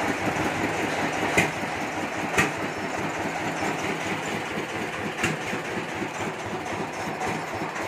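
An engine or motor running steadily close by, with three sharp clicks or knocks at about one and a half, two and a half and five seconds in.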